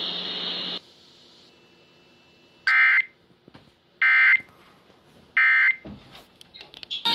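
Three short, identical bursts of Emergency Alert System data tones, the end-of-message code that closes an EAS test, each about a third of a second long and spaced about 1.3 s apart. Before them, a hiss of broadcast noise cuts off just under a second in.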